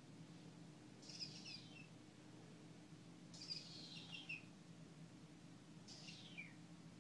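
Kitten mewing faintly: three short, high-pitched mews that fall in pitch, about a second, three and a half seconds and six seconds in, over a low steady hum.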